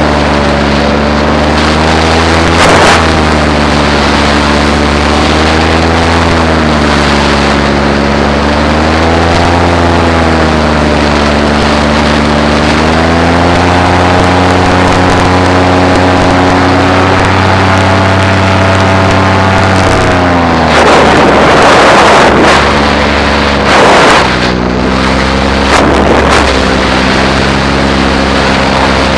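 Paramotor engine and propeller running steadily in flight, its pitch swelling and sagging slowly with small throttle changes. About three quarters of the way through, bursts of wind noise hit the microphone, then a couple of shorter gusts follow.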